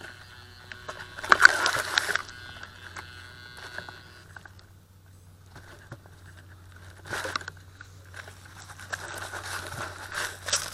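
Crashed tricopter's onboard camera lying in grass: a steady electrical hum, with a faint whine that cuts off about four seconds in, under bursts of rustling and wind buffeting on the microphone as grass brushes it, loudest about a second and a half in and again near the end.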